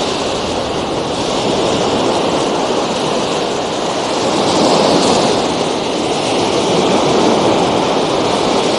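Steady rush of surf and wind at the shoreline, swelling slightly about halfway through and again near the end.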